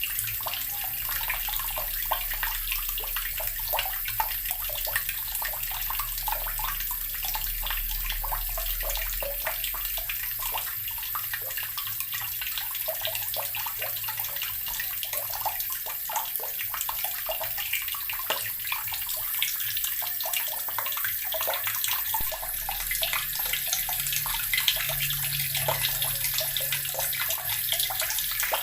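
Water running steadily from a tap, splashing into a basin or tub with a constant stream.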